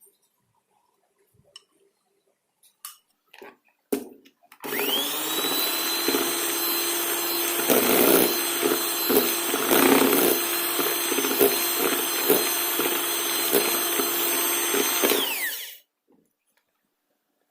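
Electric hand mixer beating batter in a bowl. After a few light knocks it switches on about four and a half seconds in, its motor whine climbing to speed, runs steadily with some uneven knocks for about eleven seconds, then winds down and stops.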